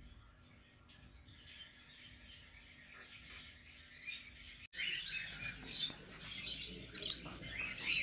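Cockatiels chirping and calling in short, busy chirps, faint at first and louder from about five seconds in.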